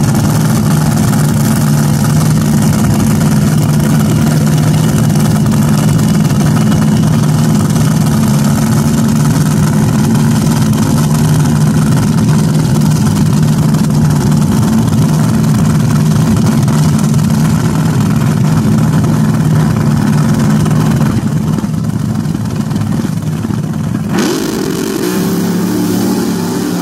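Top alcohol dragster engines idling loudly at the starting line, a steady deep drone. About three quarters of the way through the drone drops away, and a wavering, higher engine note takes over.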